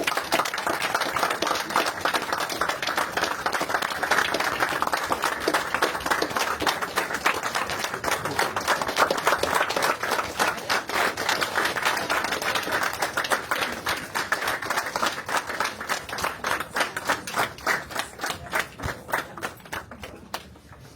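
A group of people clapping steadily. The applause thins into scattered claps and dies away near the end.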